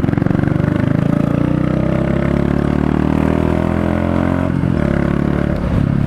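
Royal Enfield Meteor 350's single-cylinder engine and exhaust pulling under acceleration, its pitch rising steadily for about four and a half seconds, then a short break and a steady run.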